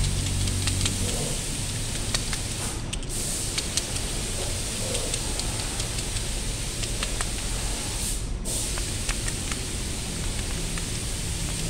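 Forklift wheel bearing being packed with grease by hand: scattered small clicks and squishes of greasy fingers working the bearing, over a steady hiss.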